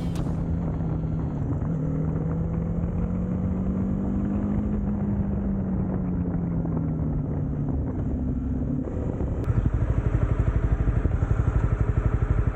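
Honda CB300R single-cylinder engine running steadily under way. About three-quarters of the way through it drops to a pulsing idle of roughly a dozen beats a second, with one short click just after.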